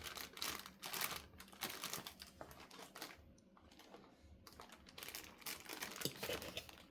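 Rustling and light clicks of a 240 mm CPU cooler and its packaging being handled, with a quieter stretch in the middle.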